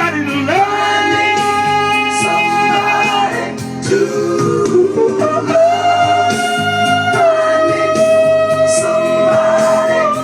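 Music: a voice singing over guitar, holding two long notes, one early on and a longer one through the second half.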